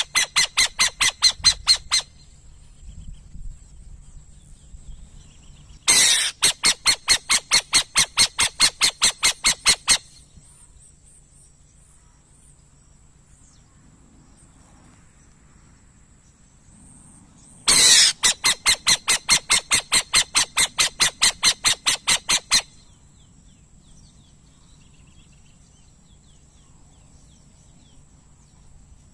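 Burrowing owl calling in three bouts. Each bout is a strong opening note followed by a rapid run of repeated pulsed notes, about five a second, lasting some four seconds, with quiet gaps between bouts.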